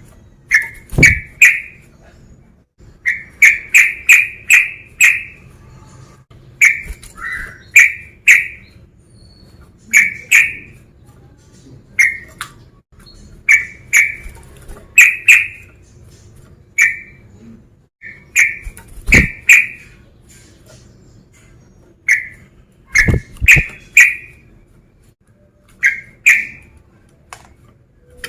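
Male yellow-vented bulbul (trucukan) giving loud, short chip notes, singly and in quick runs of two to four, each starting with a sharp click. These are a male's calls to challenge rivals.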